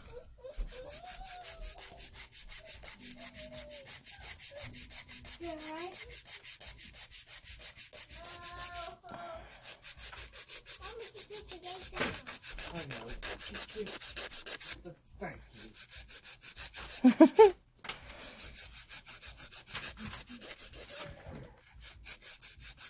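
Hand file rasping in quick, even back-and-forth strokes across an artificial nail, rebalancing the nail's shape. A short loud vocal sound cuts in about three-quarters of the way through.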